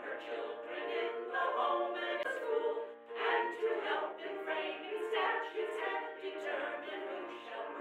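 A choir singing unaccompanied, several voices together.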